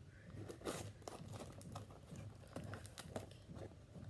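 Faint, irregular crinkling and rustling of a package's wrapping and tape as it is worked and pulled open by hand, with a few small sharp clicks.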